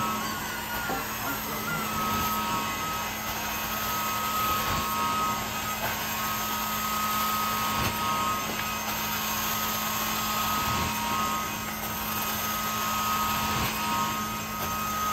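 Carpet-cleaning extraction wand drawing steady vacuum suction across carpet from a truck-mounted hot water extraction machine: a continuous rushing hiss with a steady high whine and a low hum under it.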